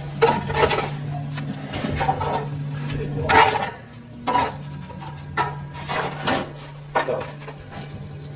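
Irregular knocking, clattering and scraping from hands-on building work with wood, a dozen or so short strikes and rubs, over a steady low hum.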